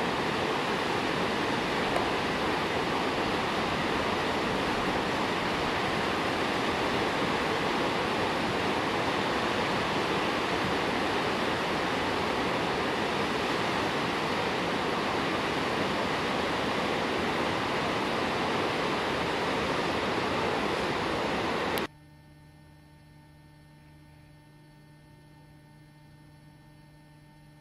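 Whitewater rapids rushing, a steady wash of river noise. It cuts off suddenly about 22 seconds in, leaving only a faint steady hum.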